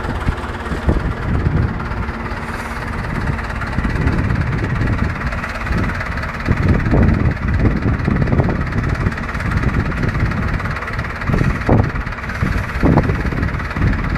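Tractor engine running steadily at low speed while it pulls a garlic planter, with irregular low thumps over it.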